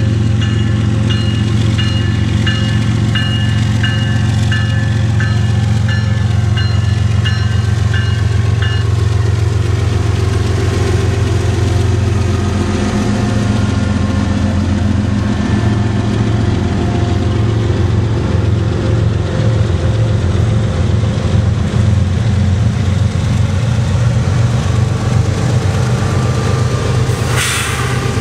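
A lashup of Canadian Pacific GE diesel locomotives (ES44AC and AC4400CW) passes at close range with a steady low engine drone. A grade-crossing bell dings about twice a second for the first nine seconds. A short hiss comes near the end.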